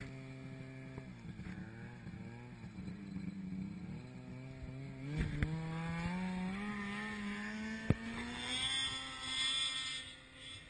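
Snowmobile engine running, steady at first, then climbing in pitch over a few seconds from about halfway through as the sled speeds up. Three sharp knocks come through, two close together around the middle and one a little later.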